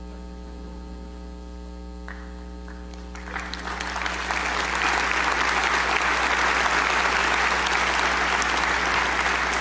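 Audience applause: a few scattered claps about two seconds in, then clapping swells from about three seconds in into full, steady applause. A steady electrical hum runs underneath.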